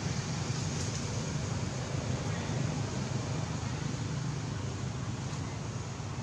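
Steady outdoor background noise: a low rumble under an even hiss, with no distinct calls or knocks.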